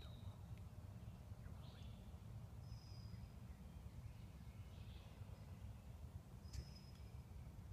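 Quiet outdoor ambience: a steady low rumble with a few faint, short, high songbird chirps, one about three seconds in and another with a sharp click near the end.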